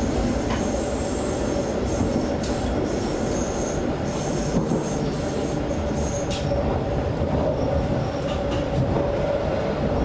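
Interior of a Hamburg S-Bahn class 472 electric train car running at speed: a steady rumble of wheels on rail with faint high wheel squeal and a few sharp clicks. A steady hum grows stronger near the end.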